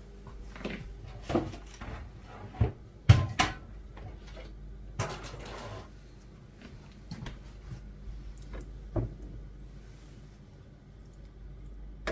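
Kitchen clatter while cooking: a string of separate knocks of pots, dishes and cupboard doors, the loudest about three seconds in, with a short rustling or scraping rush about five seconds in.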